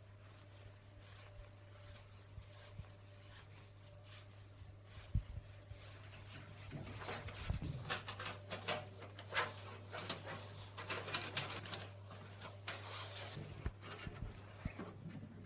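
A low steady hum with a run of quick, irregular light clicks and taps through the middle part that stops near the end.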